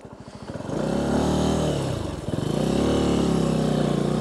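Benelli TNT 125's single-cylinder engine idling, then revving as the motorcycle pulls away about half a second in. The pitch climbs, drops at a gear change about two seconds in, and climbs again.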